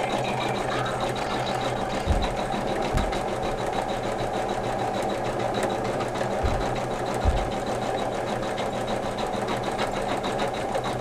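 Computerised embroidery machine stitching steadily at a fast rate, its needle sewing a dense fill design on organza, with a few brief low bumps.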